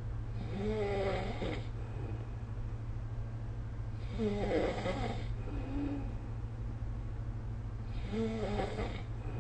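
A sleeping person snoring, three snores about four seconds apart, each lasting about a second, over a steady low hum.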